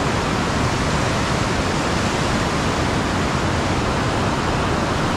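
River rapids rushing steadily over rocks, a constant even roar of whitewater.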